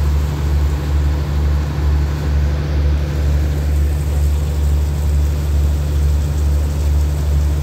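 Diesel passenger train standing with its engines idling: a steady low drone that does not change.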